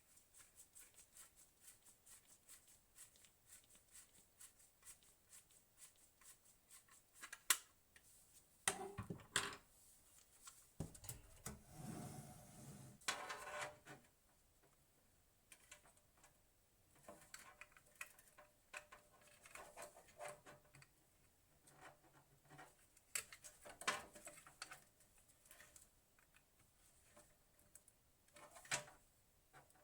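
Hands working on desktop PC parts: first a run of light, fast clicks, about four a second, then scattered sharp knocks and clicks, with a stretch of rubbing and scraping partway through.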